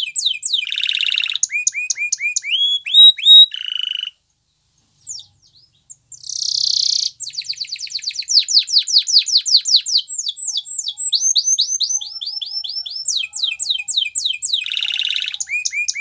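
Domestic canary singing: fast trills of repeated sweeping notes broken by buzzy rolls, with a pause of about two seconds partway through before a long, rapid trill.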